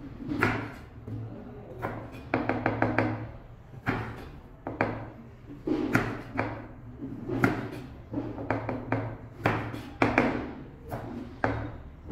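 Chef's knife cutting a carrot on a plastic cutting board: irregular knocks of the blade striking the board, with a quick run of several strokes about two to three seconds in.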